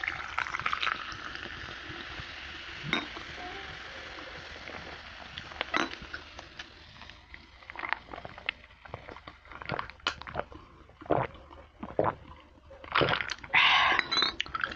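Coca-Cola poured from a glass bottle into a drinking glass, the soda fizzing for a few seconds and fading. Scattered clinks and knocks of glass follow as it is drunk, then a second loud pour near the end.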